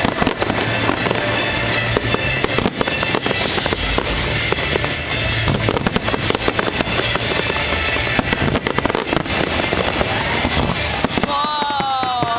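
Fireworks going off in a rapid, unbroken run of crackles and bangs, with music playing underneath.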